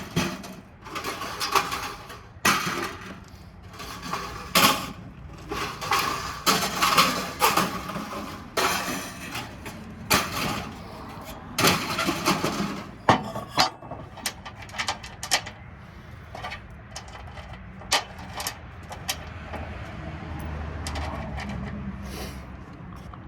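Metal clanking and knocking as a parking lot light fixture is taken apart by hand, the strikes coming thick for the first half and sparser afterwards, with a low hum coming up near the end.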